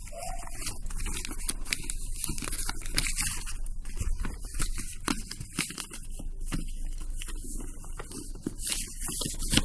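Packaging being handled and opened by hand: a continuous run of crackling, tearing and scraping of cardboard and plastic wrap, over a steady low hum.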